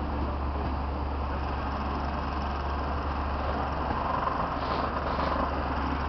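Passenger coaches of a departing express train rolling away over the rails: a steady rumbling noise, with a faint thin tone about four seconds in.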